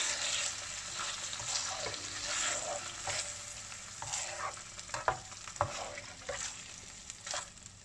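Raw chicken livers sizzling in oil and ginger-garlic paste in a nonstick frying pan while a spatula stirs them, with repeated scraping swooshes. Two sharp knocks of the spatula against the pan come about five seconds in.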